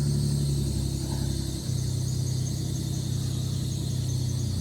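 A vehicle engine idling steadily, with a faint thin high-pitched whine above it.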